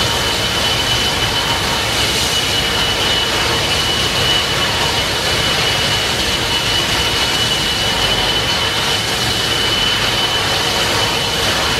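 TriCat 45M fast ferry's Solar Taurus gas turbines running while it manoeuvres alongside the pier, a steady high whine over the rushing churn of its KaMeWa waterjets.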